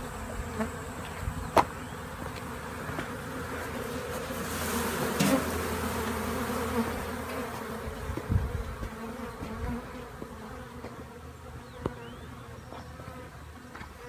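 Honey bees from a swarm flying around a hive box, a steady buzzing hum. A sharp click about a second and a half in, and a few low knocks later.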